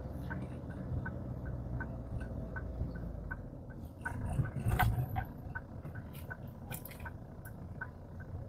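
Car turn-signal indicator clicking steadily, about two to three ticks a second, over the engine and road noise inside the cabin. A brief louder rumble and knock comes about five seconds in.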